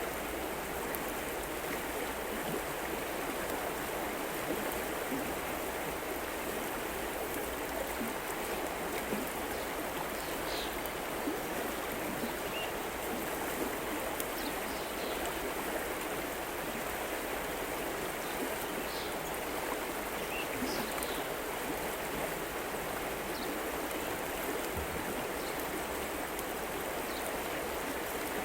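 River water flowing steadily, an even rushing babble, with a few faint short high chirps now and then.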